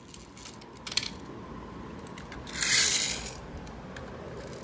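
Die-cast Tata 407 toy tow truck rolling along the floor with a toy car in tow: a low rolling rumble with a few light clicks in the first second and one loud scrape, lasting under a second, about two and a half seconds in.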